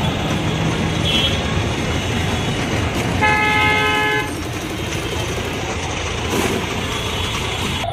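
Busy road traffic noise, with a vehicle horn honking steadily for about a second, about three seconds in.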